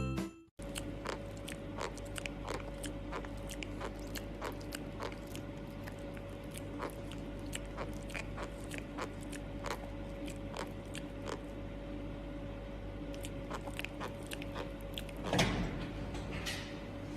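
Crunchy food being chewed in quick small bites: many sharp, crisp clicks a second over a steady low hum. About fifteen seconds in there is a louder burst of noise.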